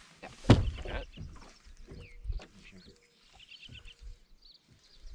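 Songbirds singing repeated short trills, with a loud thump about half a second in and a few lighter knocks after it.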